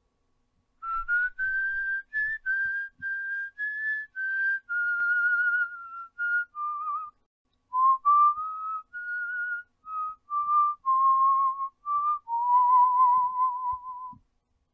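A person whistling a slow tune: a string of separate held notes that drifts lower over its course and ends on a long, lower final note.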